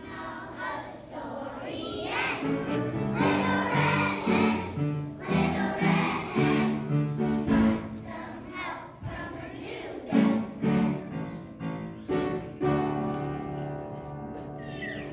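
A choir of kindergarten children singing a song together, with instrumental accompaniment.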